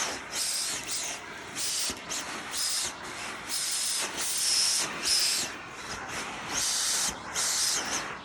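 Vacuum cleaner drawn in strokes over a dog's coat: a run of short hissing rushes of suction, each under a second long, over the motor's steady high whine.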